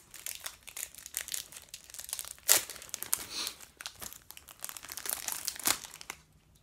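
A basketball card pack's wrapper being torn open and crinkled by hand, with quick crackles and snaps; the loudest rip comes about two and a half seconds in and another sharp one near the end.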